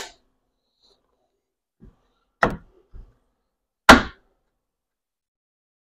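Pneumatic nail gun firing twice into wooden framing, about a second and a half apart, the second shot the louder, with the air supply running low. A couple of faint knocks come between.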